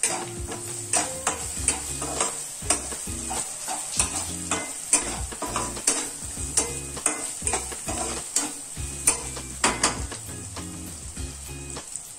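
Spatula stirring and scraping onions and spice powders frying in hot oil in a nonstick pan: a steady sizzle under repeated sharp scrapes, about one or two a second. Chilli and turmeric powder are being fried into the onion masala.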